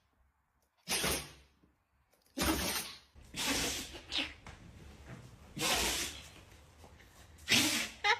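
A dog sneezing several times in a row: about five short, sharp, hissy sneezes, spaced a second or two apart.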